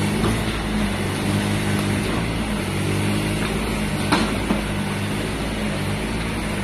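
Mini excavator's diesel engine running steadily at work, with a couple of sharp knocks about four seconds in as the machine works the hard ground.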